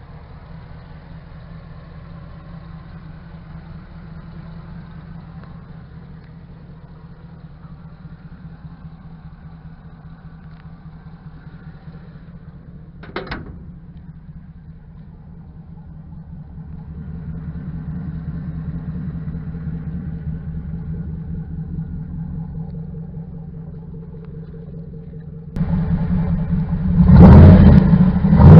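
A 5.3-litre V8 in a 1972 Chevy truck running as the truck is driven, a steady low engine note. It grows louder about 17 s in, and near the end the sound jumps suddenly to much louder.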